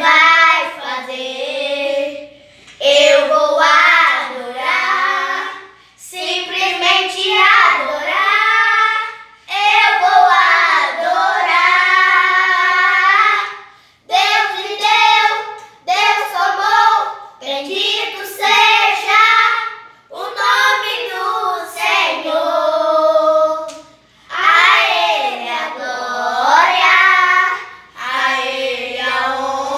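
A high, child-like voice singing a song unaccompanied, in phrases of two to four seconds with short breaths between.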